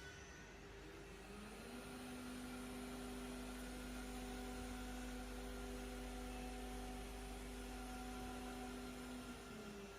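Faint electric motor of a woodworking machining unit spinning up about a second in, running at a steady whine, then winding down near the end, over a constant low hum.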